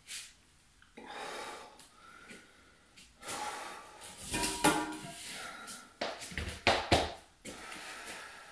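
A man breathing hard between exercises, with several loud breathy exhalations, then a few sharp knocks about six to seven seconds in as the metal dip bars are set down on the foam floor mat.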